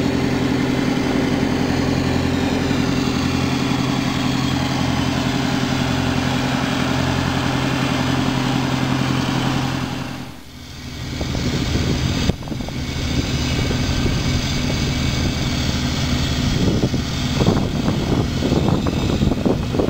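Diesel engine on a cutter suction dredger running steadily at constant speed. About halfway through it dips away briefly, and a rougher, noisier machinery sound with a few knocks takes over.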